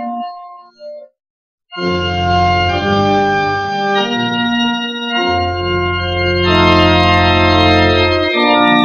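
Church organ playing slow sustained chords over deep pedal bass notes. A phrase ends just after the start, there is a brief silence of about half a second, and then the organ comes in again with full held chords.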